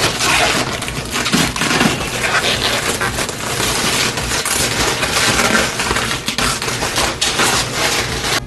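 Plastic wrapping crinkling and crackling as it is pulled off and handled.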